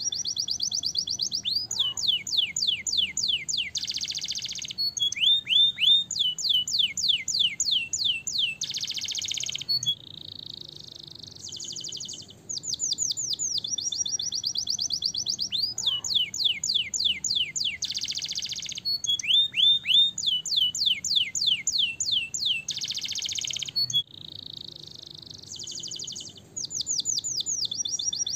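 Domestic canary singing: fast trills of high whistled notes that each slide downward, broken by short harsh buzzing rolls and two softer stretches of a steadier whistle. The same run of phrases repeats about every 14 seconds.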